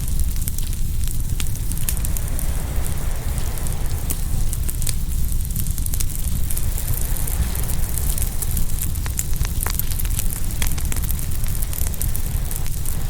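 Open wood fire crackling and popping, with many sharp irregular pops over a steady low rumble and wash of waves coming in on the shore.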